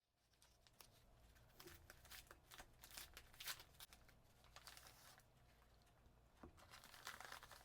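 Faint rustling and scattered light clicks of something being handled close to the microphone, with the loudest click about three and a half seconds in.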